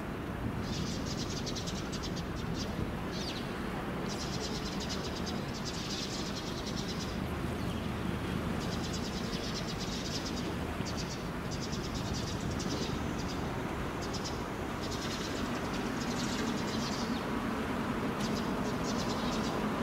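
Birds chirping in repeated high, rapid trills, each lasting under a second to about a second, over a steady low rumble that grows slightly louder in the last few seconds.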